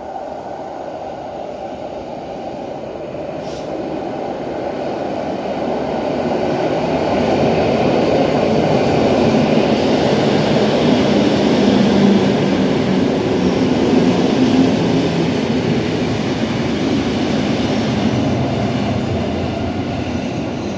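PKP class EN57 electric multiple unit running into an underground station platform. Its wheel and motor noise grows louder over the first ten seconds and stays loud as the cars pass, echoing in the enclosed station hall.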